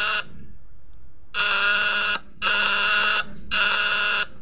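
Vibrating contact breaker (platina) of a homemade battery-driven fish-shocker inverter buzzing. The buzz cuts out early on for about a second, then starts and stops three more times in short runs.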